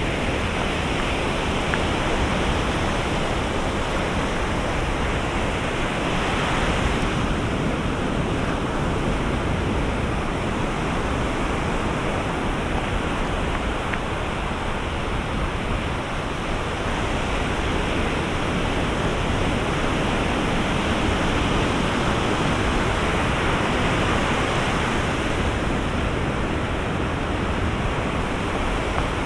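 Ocean surf breaking on a sandy beach: a steady rush of broken waves that swells and eases slowly.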